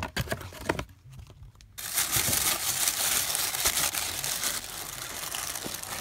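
Tissue paper crinkling as a hand rummages through it in a cardboard box: a few light handling clicks, a brief lull, then from about two seconds in a dense, continuous crinkling.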